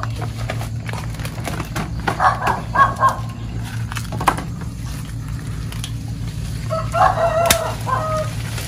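A rooster crowing twice, once about two seconds in and again near the end, over a steady low hum.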